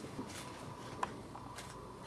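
Faint rustling and handling noises with one sharp click about a second in, over a faint steady hum.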